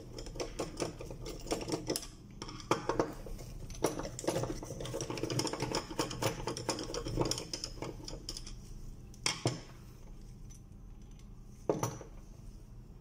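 Screwdriver working the Phillips screws out of an aluminium lamp housing: a run of quick small metal clicks and scrapes, then two separate louder knocks a couple of seconds apart as the metal housing is handled.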